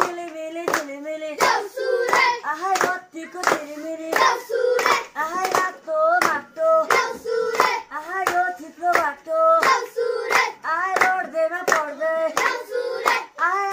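A group of boys singing a Deusi song together, clapping in time about three times every two seconds.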